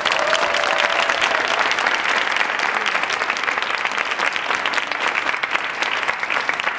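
A crowd applauding: many hands clapping together in a dense, steady patter.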